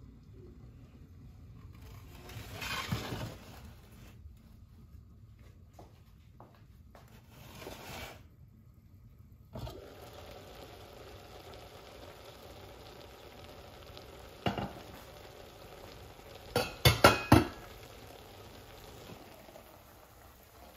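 Kitchen cookware clatter: a few sharp metal clinks of pots, lid and spatula, loudest in a quick run of clinks near the end, over a faint steady hiss from the stovetop.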